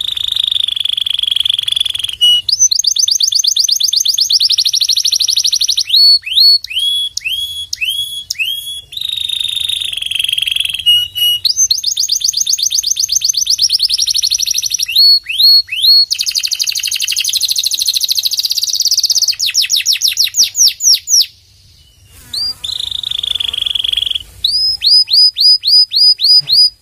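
Domestic canary singing a long, loud song of rolling trills and fast runs of repeated notes, some sweeping downward in pitch. It breaks off briefly about three quarters of the way through, then resumes and ends with a run of sharp repeated notes.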